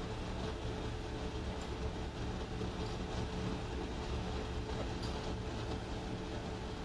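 Ship's machinery running with a steady drone: a constant low hum with one held mid-pitched tone above it.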